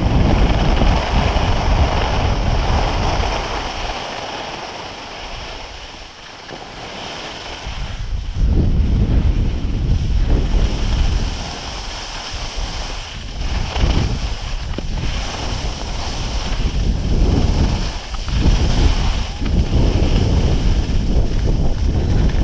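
Wind buffeting the microphone of a camera carried at speed down a groomed ski run. It swells and eases with speed, dipping quieter around five to seven seconds in, then surging again.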